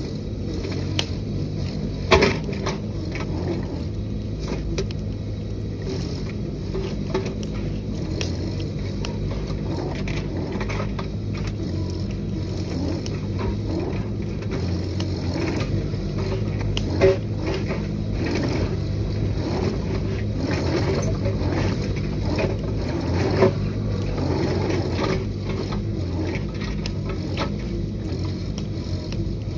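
Mini excavator's diesel engine running steadily, with scattered metallic clanks and knocks from the working machine; the sharpest come about two seconds in and twice more past the middle.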